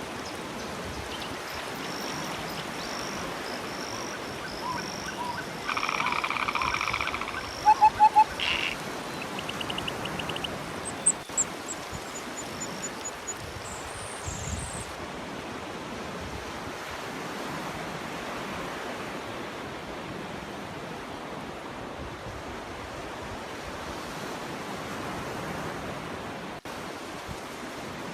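Steady surf on a shore throughout. About six to nine seconds in, a burst of loud, repeated pulsed animal calls stands out, followed by a short trill and scattered high chirps; after that only the surf remains.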